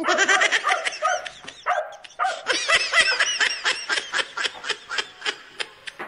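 A dog barking in a rapid run of high, yelping yips, about four a second, that stops near the end.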